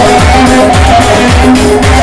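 Loud dance music from a live band playing through PA loudspeakers: electronic keyboard with a steady drum beat, about two beats a second, under a melody line.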